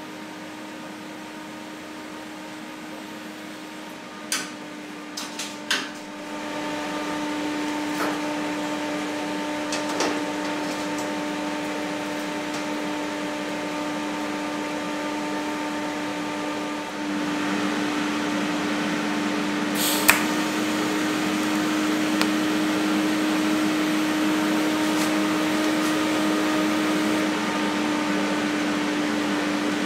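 Steady hum and fan noise from a TIG welding set, with a held pitched tone, during tack welding of stainless steel sheet. It steps louder about six seconds in and again a little past halfway. A few sharp clicks and taps come in the first six seconds and once about twenty seconds in.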